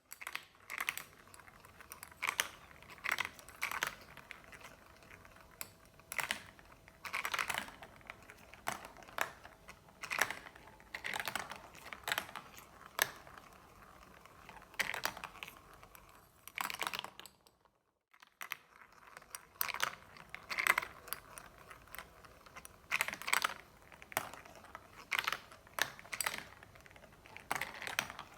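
Marbles rolling and clattering down a marble run track, with many irregular sharp clicks as they knock against the track and each other over a low rolling hiss. The sound cuts out for about a second a little past halfway, then carries on.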